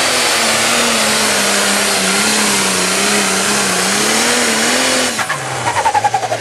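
Ford 8630 pulling tractor's diesel engine running flat out under full load as it drags the pulling sled, a loud steady drone whose pitch wavers up and down. About five seconds in the engine note drops sharply and a whine falls away.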